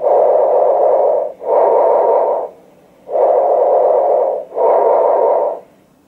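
Bronchial breath sounds heard over the chest with a stethoscope: two breaths, each an inhalation and an exhalation of loud, harsh rushing noise with a brief break between them, and a pause before the second breath.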